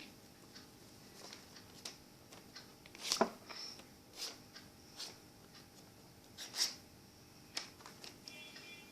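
A sheet of paper being handled and folded: scattered crisp rustles and creasing taps, the loudest about three seconds in and again about six and a half seconds in.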